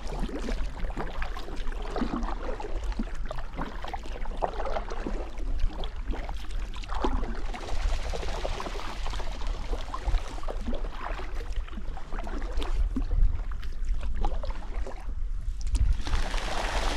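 Kayak paddle strokes: the blade dips and drips water as the kayak glides, over a steady low rumble. A louder hiss comes in near the end.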